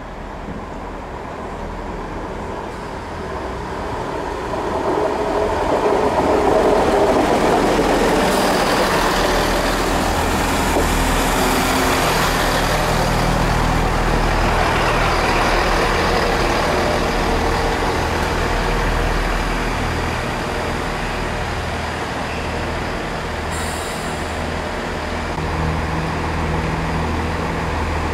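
GWR Class 166 Turbo diesel multiple unit running past the platform, its diesel engines and wheels on the rails getting louder over the first six seconds and then holding steady as the carriages go by. A short hiss comes near the end, and then the engine note of a second diesel unit, a CrossCountry Class 170, arriving.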